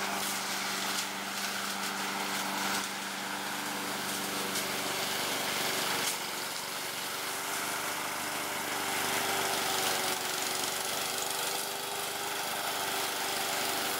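Husqvarna walk-behind lawn mower's small petrol engine running steadily while mowing, its note shifting slightly about five seconds in.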